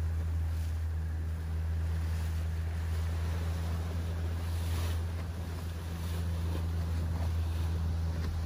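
A boat engine running with a steady low drone, over the wash of water and wind on the microphone.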